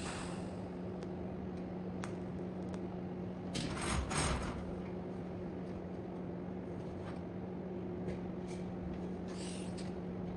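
A steady low hum with scattered light clicks and taps, and a brief rustling scrape about four seconds in and another near the end: small handling noises in a workshop.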